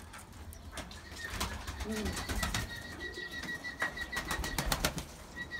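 Domestic pigeons cooing, with scattered clicks and scuffs, and a thin steady high tone through the middle seconds.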